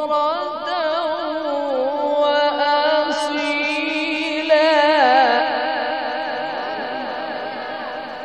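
A male reciter's voice in Quran recitation (tilawat), drawing out one long melodic phrase with a fast wavering vibrato. It climbs higher about two seconds in, then slowly fades away toward the end.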